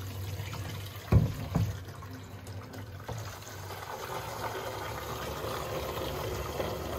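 Water running from a camping water bladder's outlet hose into a 22-litre container, a steady filling sound. There are two dull knocks a little over a second in.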